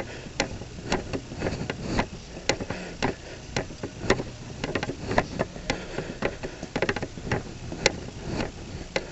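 Footsteps on a hard floor: a steady run of sharp clicks and taps, two or three a second, over a low steady hum.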